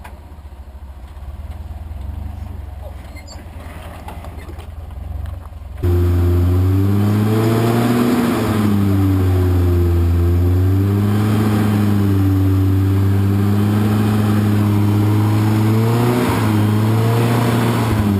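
A 1985 Toyota pickup's engine crawling up a boulder ledge, its revs rising and falling again and again as the throttle is worked. It is faint at first, then much louder and closer from about six seconds in.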